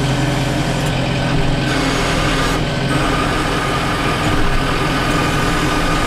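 Compact loader tractor's engine running steadily, heard close up from the operator's seat while the front loader is worked; its note shifts slightly about halfway through.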